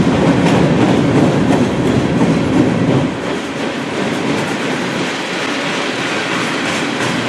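Freight train cars rolling past, steel wheels clattering on the rails over a steady rumble; a little quieter after about three seconds.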